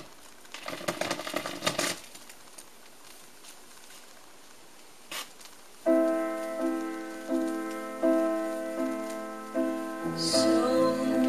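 A vinyl record playing on a Denon DP-23F direct-drive turntable: crackle and clicks from the lead-in groove, then about six seconds in a song starts with a keyboard playing repeated notes, and more instruments join near the end.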